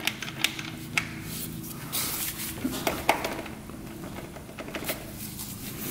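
Scattered light metallic clicks and taps as the kickstart shaft and its return spring are worked by hand in the open crankcase of a 1977 Honda Z50 engine. A steady low hum runs underneath.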